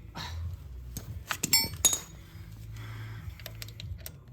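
Metal clinking of a socket and wrench being handled and fitted onto bolts, with a quick run of sharp, ringing clinks between about one and two seconds in.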